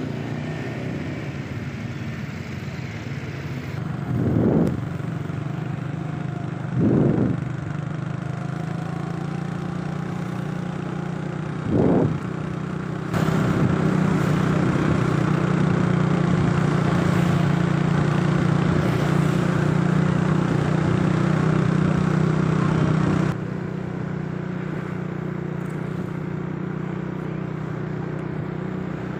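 Engine of a moving vehicle running steadily in street traffic, louder for about ten seconds in the middle, with three short swells of sound from passing traffic earlier on.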